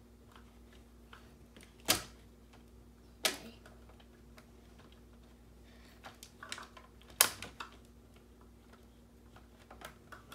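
Hard plastic parts of a Giant Eggman Robot toy clicking and knocking as they are fitted together by hand: three sharp clicks about two, three and seven seconds in, with lighter ticks between.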